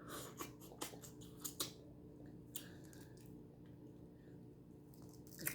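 Small clicks and crunches of shell-on shrimp being eaten: several quick ones in the first second and a half, then a few sparse ones, and a sharper click near the end.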